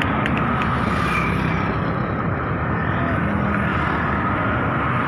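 Steady rumble of a GEU-40 diesel-electric locomotive hauling a train out of the station, heard from a distance and mixed with outdoor traffic noise. A few light clicks sound near the start.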